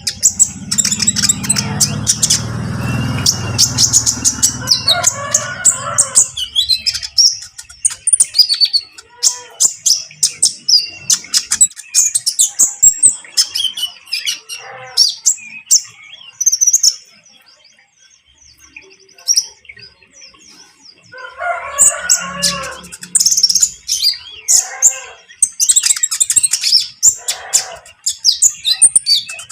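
Olive-backed sunbirds singing: rapid, high-pitched chirping trills, with a lull of a few seconds past the middle. A low rumble sounds under the song in the first few seconds.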